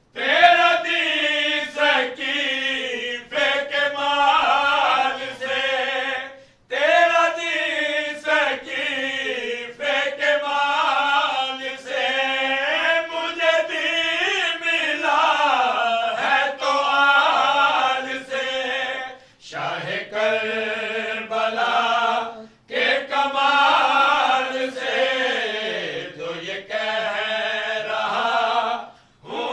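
A man's voice chanting a qaseeda, a devotional poem, without instruments, in long melodic phrases broken by a few short pauses.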